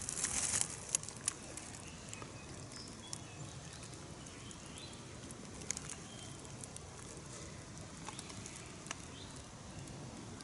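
Quiet woodland outdoors: a brief rustle that stops just after the start, then scattered small ticks and a few faint, short bird chirps.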